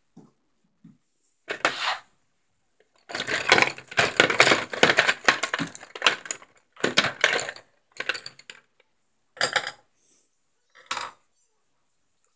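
Light clattering and clinking of small hard objects in about six separate bursts, the longest and loudest lasting about three seconds.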